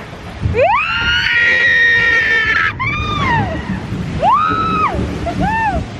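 Log flume riders screaming: one long, high held scream, then three shorter rising-and-falling yells.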